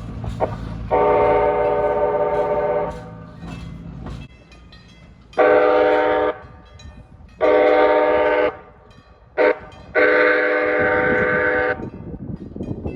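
Horn of a Nippon Sharyo P865 light rail car sounding five chord blasts: a long one, two shorter ones, a very brief toot, and a final long one. A low rumble from the moving car lies under the first blast.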